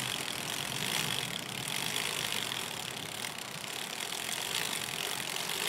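Brompton folding bicycle's chain turned backwards by the cranks and drawn through a rag, with a steady mechanical ratcheting tick of the drivetrain.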